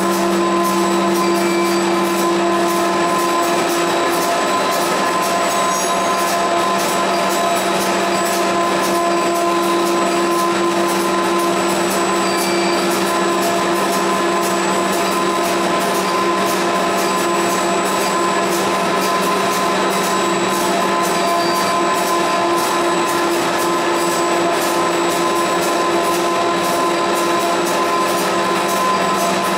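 YC1650-5C flexographic printing press running with its paper web feeding through: a steady machine hum and whine made of several constant tones that does not change.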